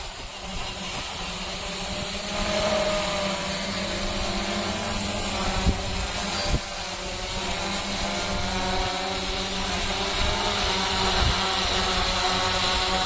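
Hexacopter drone's motors and propellers running in flight: a hum of several wavering pitches that grows louder from about two seconds in, over a steady hiss. Two brief knocks come near the middle.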